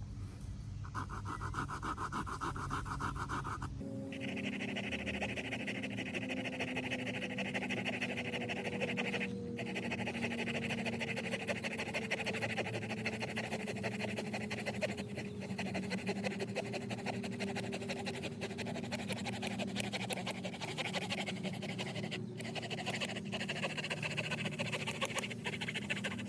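Small folding saw blade of a Victorinox Fieldmaster Swiss Army knife cutting through hard, dry dead dogwood: continuous back-and-forth rasping strokes, the teeth slowly working into very hard wood.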